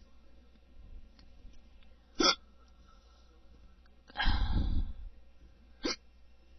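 A person hiccuping: two short, sharp hiccups, about two seconds in and again near the end, with a louder half-second burst of noise between them.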